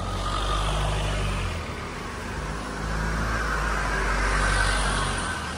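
Motor vehicles passing on a road, engine hum and tyre noise rising and fading twice, a couple of seconds apart.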